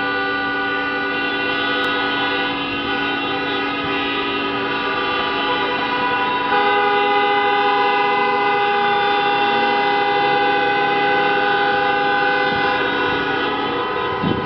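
Many car horns sounding together in a stationary traffic queue, held on continuously at several different pitches that overlap; a louder horn joins about six and a half seconds in.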